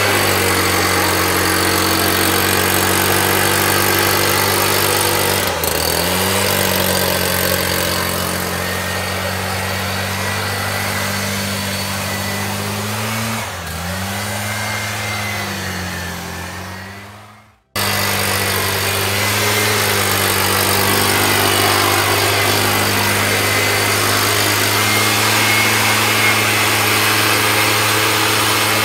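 STIHL backpack mist blower's two-stroke engine running steadily with the fan hissing through the spray tube, its pitch dipping briefly and recovering twice. The sound fades away about two-thirds of the way through, then cuts straight back in at full level.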